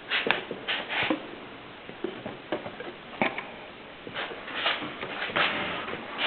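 Mercedes typewriter clacking irregularly: scattered key and typebar strikes and mechanical clunks, some followed by a short rasp.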